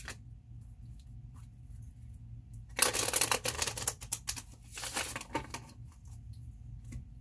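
Tarot cards being shuffled by hand: a dense burst of rapid card flicking about three seconds in lasting around a second, then a shorter burst near five seconds, with a few light card clicks in between, over a faint low hum.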